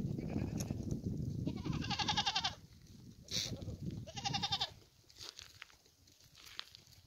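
Goats bleating: a quavering bleat about two seconds in and a shorter one about four seconds in. A low rumble underneath fades out about two and a half seconds in, leaving faint scattered clicks.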